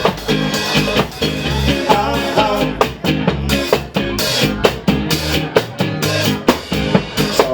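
Live ska band playing an instrumental passage: drum kit keeping a steady beat under guitar.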